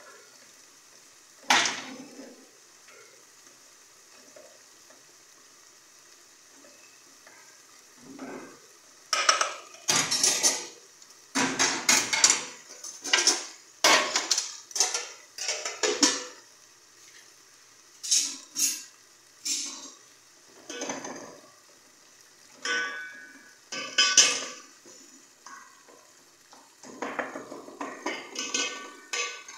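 Metal spoons and aluminium pots and lids clinking and clattering as food is stirred and pots are handled on a gas stove. One sharp clink comes near the start, then a quiet stretch, then clusters of clanks and scrapes from about nine seconds in to the end.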